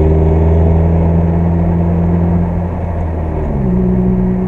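Car engine and road noise heard inside the cabin while driving: a steady low drone whose pitch steps up about three and a half seconds in, as the engine speed rises.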